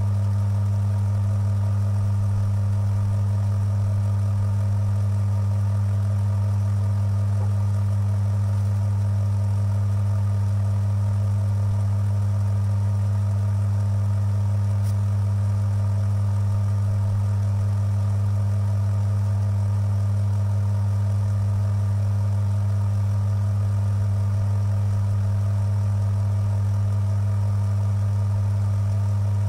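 Electric motor of a bench Timken-style friction tester running steadily with no load, a loud even hum, during the machine's no-load break-in of its brass test roller.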